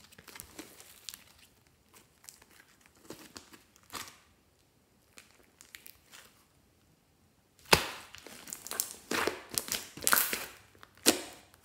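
Fluffy slime being stretched and kneaded by hand: soft sticky crackling and tearing at first, then from about eight seconds in a run of loud sharp pops and clicks as the slime is squeezed and pressed, the air trapped in the foamy slime bursting.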